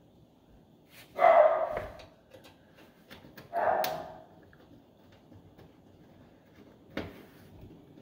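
A dog barking twice, two loud short barks about two and a half seconds apart, then a sharp click near the end.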